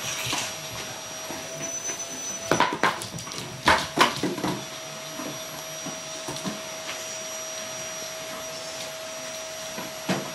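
Vacuum cleaner running steadily, a constant motor whine over a rushing hiss. A few sharp knocks cut through it about three to four seconds in.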